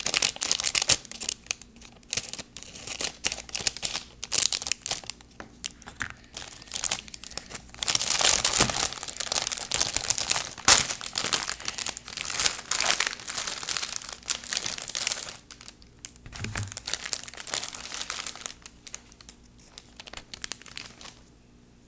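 Clear plastic packaging crinkling and tearing as it is pulled open by hand, in irregular bursts of crackle that die down near the end.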